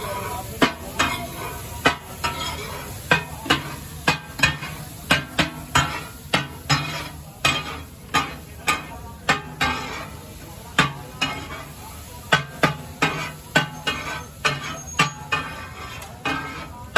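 Metal spatula clanking and scraping on a large iron tawa griddle as fried fish katakat is chopped and tossed, over a steady sizzle. The strikes come irregularly, about two or three a second.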